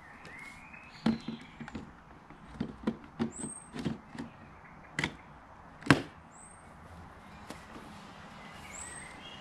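A string of sharp plastic clicks and knocks from handling a Spear and Jackson 40 V cordless rotary mower by hand, with one louder knock about six seconds in; the mower's motor is not running. Birds chirp in the background.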